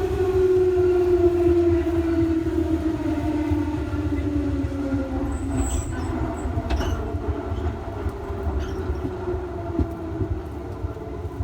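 Electric train's traction motors whining under the rumble of the car, the pitch falling steadily as the train slows. A brief high squeal and a few sharp clicks come about six to seven seconds in.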